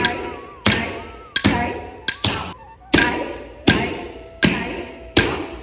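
Bare feet stamping flat on a wooden floor in the thattadavu footwork of Bharatanatyam, eight even strikes at about one every three-quarters of a second, alternating right and left feet. Ankle bells jingle briefly with each stamp.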